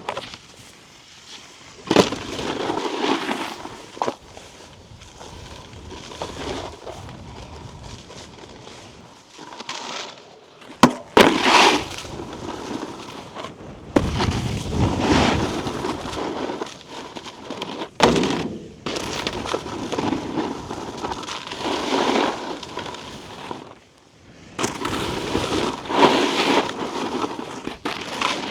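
Snowboard riding on icy, slushy snow: the board's edges scrape and hiss in long swells as it carves and skids, with several sharp knocks along the way.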